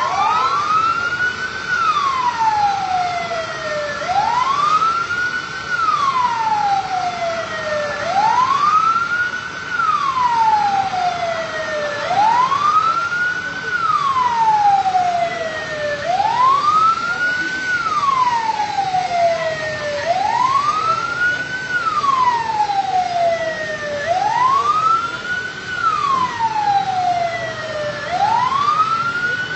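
Emergency-vehicle siren wailing in an even cycle: it rises for about a second and a half, falls for about two and a half, and repeats every four seconds. A second steady high tone holds under it throughout.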